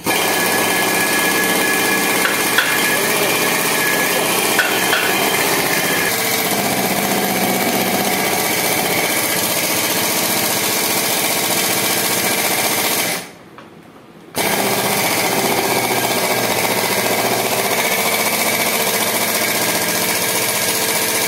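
A pneumatic tool runs loud and steady. It cuts off about 13 seconds in, then starts again a second or so later and runs on.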